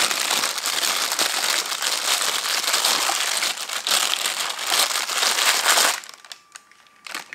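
Clear plastic bag crinkling as a camera lens is pulled out of it, stopping suddenly about six seconds in; a few faint clicks follow.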